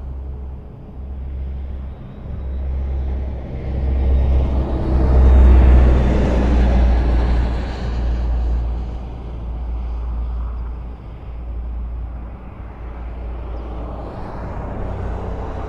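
A vehicle engine's low rumble, with a noisy swell that builds, is loudest about six seconds in, and fades again, as of something passing by.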